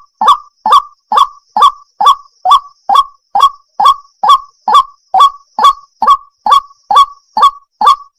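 Waterhen calling: one short, loud note repeated at an even pace of about two a second, each note dropping slightly in pitch.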